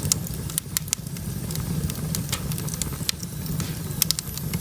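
Firewood crackling and popping in a fireplace: sharp, irregular pops scattered throughout, over a steady low rumble.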